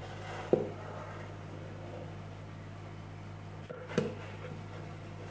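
Faint steady low hum with two short sharp knocks, one about half a second in and one near four seconds in: a plastic mixing bowl and spatula knocking against a metal tube cake pan as batter is poured and scraped into it.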